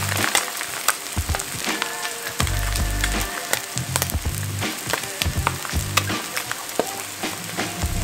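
Whitebait fritter sizzling and crackling in oil in a nonstick frying pan, with a steady hiss and many small pops. A low bass line of background music repeats underneath.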